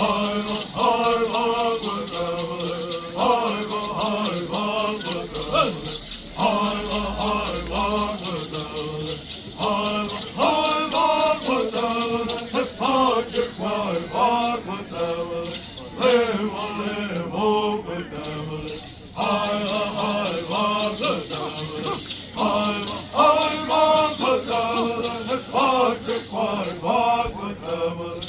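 Bird songs sung by men's voices to gourd rattles shaken in a fast, steady rhythm. The rattling briefly drops back about two-thirds of the way through.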